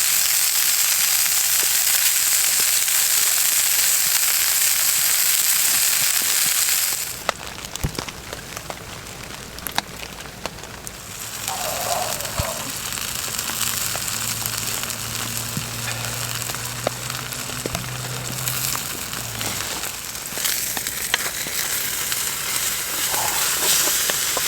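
Food frying on a titanium plate over a campfire: a loud, close sizzle for about seven seconds, then a sudden drop to a quieter sizzle with scattered pops and crackles.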